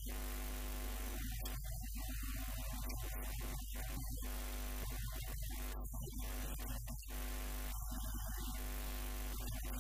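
Steady electrical mains hum with a buzzy stack of overtones, running unbroken at an even level.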